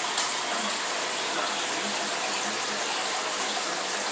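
Aquarium aeration and water movement: a steady bubbling rush of air bubbles and circulating water in the tank.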